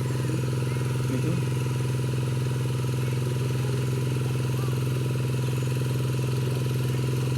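A small engine running steadily at one constant speed.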